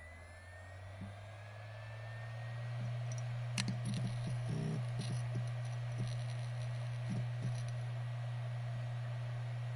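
A 7200 rpm hard drive finishing its spin-up: the motor hum rises in pitch with faint climbing whines, then settles into a steady hum at full speed. About three and a half seconds in, a run of sharp clicks comes and goes over several seconds as the read/write heads load and seek, and the drive then idles with a steady hum.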